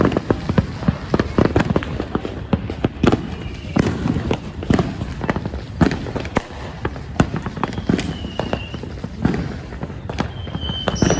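Fireworks going off in a rapid, irregular string of bangs and pops, with a few short high whistles among them.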